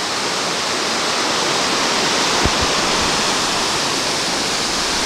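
Rocky creek rushing steadily as it spills over a rock ledge in a small waterfall.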